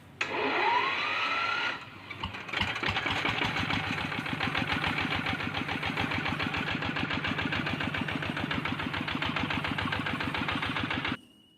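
An engine starting: a rising whine for about two seconds, then, after a brief pause, the engine runs steadily with a fast, even beat until it cuts off suddenly near the end.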